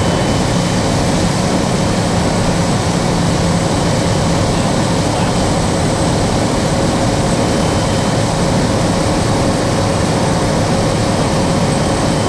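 Kodiak 100's single Pratt & Whitney PT6A turboprop and propeller, heard from inside the cockpit on final approach. It is a loud, steady drone with a thin high whine above it.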